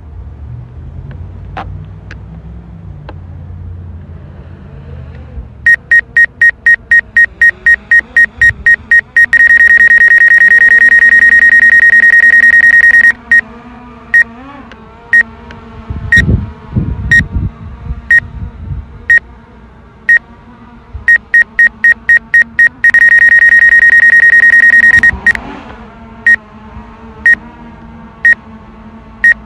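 DJI Air 2S remote controller sounding a warning alarm, a high electronic beep at one pitch. It goes in rapid beeps, then a steady tone for about four seconds, then single beeps about once a second, and the cycle starts again about two-thirds of the way in. Wind rumbles on the microphone underneath.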